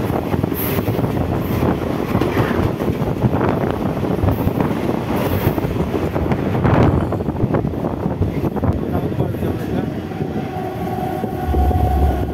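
Mumbai EMU local train running at speed, heard from its open doorway: a steady rush of wheel and running noise with rapid clatter over rail joints, while a second EMU passes close alongside at the start. A thin steady whine comes in near the end.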